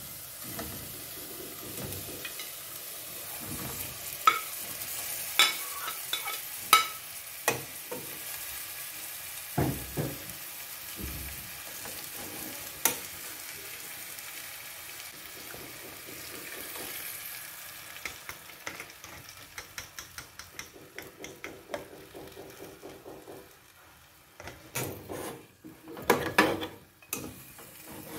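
Chicken pieces sizzling in adobo sauce in a metal pot while a metal spatula stirs them, scraping and knocking against the pot now and then. In the second half the sizzling fades and the spatula's clicks and scrapes come faster, with a few louder knocks near the end.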